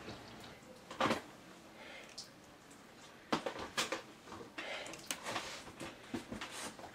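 Scattered knocks, clunks and rattles of things being handled, with one loud thump about a second in and a quick run of clatter about three and a half seconds in.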